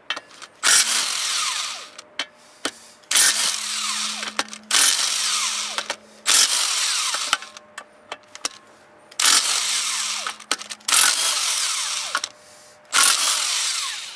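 Milwaukee M18 half-inch cordless impact wrench hammering in about seven short bursts of a second or so each, with brief pauses between them, as it breaks loose and spins out slightly rusty flex plate bolts. The bolts come out with little resistance.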